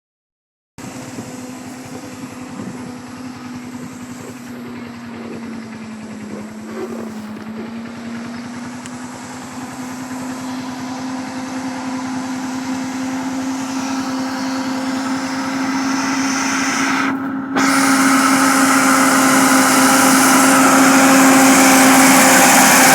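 Vehicle engine running steadily, a constant hum that grows gradually louder. About seventeen seconds in, the sound cuts out for a moment and comes back louder.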